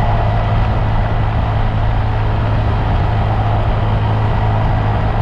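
Honda Monkey minibike's small engine running steadily, with a constant rush of noise over it.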